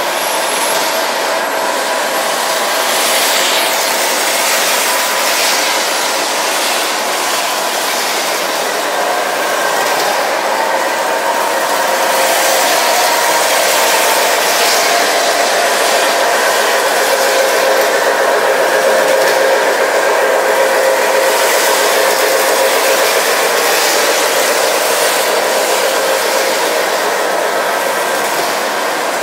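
O scale model train running on the layout's track: a steady whir and rumble from the locomotive motor and the wheels on the rails. It grows slightly louder about twelve seconds in, as the string of autorack cars passes close by.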